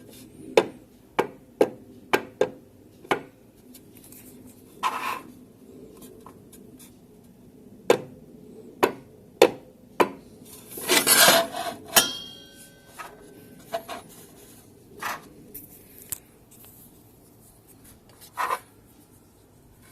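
Metal parts of a table saw being handled: a string of sharp clicks and knocks, a few of them ringing briefly, with scraping rubs about five seconds in and again near the middle.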